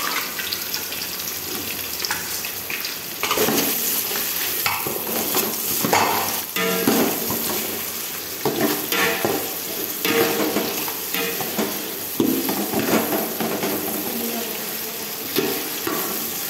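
Sliced onions sizzling in hot oil in a large aluminium pot. From about three seconds in, a metal spatula stirs them with repeated scraping strokes against the pot.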